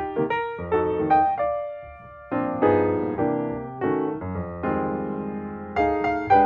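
Background piano music: single notes and chords struck a few times a second, each dying away.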